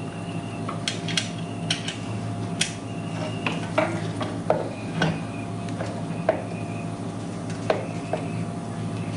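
Scattered light metallic clicks and scrapes as a pressure-washer pump is turned and pushed against the engine's vertical shaft, trying to line up the keyway. A steady low hum runs underneath.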